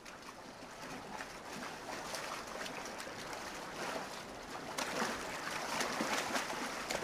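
Rushing river water and the splashing of wildebeest swimming across the current, with the splashes coming thicker from about five seconds in.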